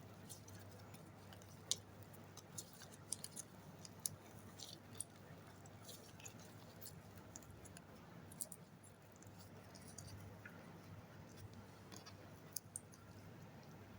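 Slime being squished and kneaded by hand, giving faint, irregular sticky clicks and pops, about one every second.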